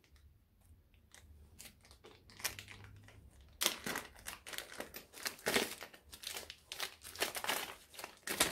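Plastic packaging crinkling and rustling as it is pulled open and handled by hand. It is faint at first, then turns into louder, irregular crackles from about three and a half seconds in.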